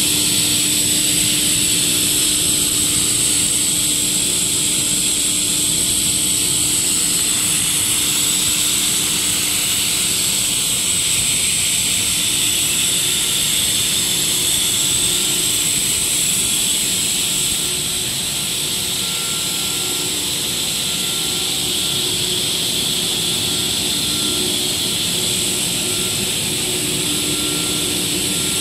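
PE plastic pipe extrusion line running: a steady, loud machinery noise with a strong high hiss over a low hum, dropping slightly in level a little past halfway.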